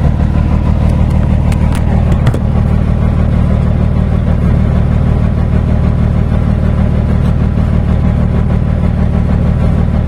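Scania truck's diesel engine idling steadily, with a few light knocks of handling about one to two seconds in.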